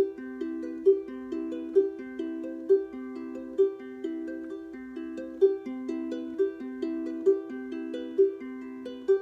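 Solo plucked string instrument picking a repeating pattern of notes, with an accented note about once a second.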